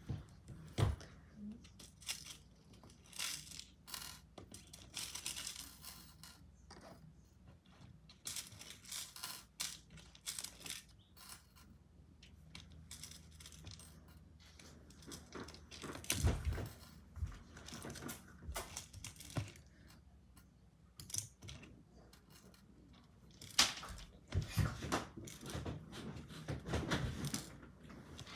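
Small clay beads and a clear plastic compartment organizer box clicking and rattling as they are handled and sorted: irregular clicks and short rattles with quieter gaps between them.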